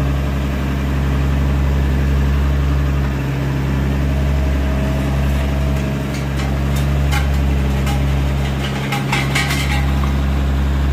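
Case IH Puma 200 tractor's six-cylinder diesel engine running steadily while working the stubble rollers, with a few light clicks and knocks in the second half.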